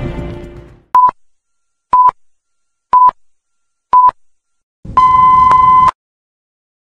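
Film countdown leader sound effect: four short beeps at the same pitch, one a second, then a longer beep lasting about a second.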